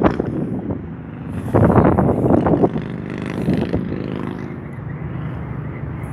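Motor vehicle engine noise: gusts of rumbling about a second and a half in, then a steady engine hum in the middle.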